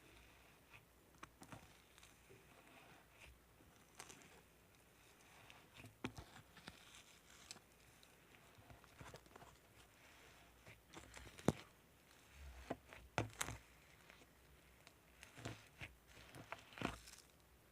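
Slime being handled by hand, giving faint, scattered small clicks and crackling pops, with a few louder ones after the middle.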